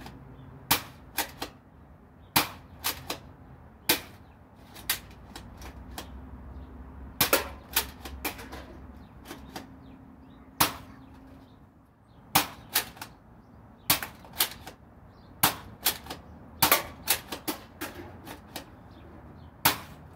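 Thermal Zenith foam-dart blaster firing repeatedly, dozens of sharp snaps, often in quick pairs or triples, over a steady low hum that stops about halfway through.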